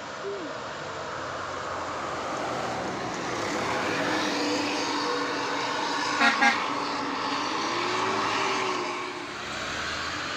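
A large tour bus approaching on a rain-wet road, its engine and tyre hiss growing louder, with two short horn toots about six seconds in.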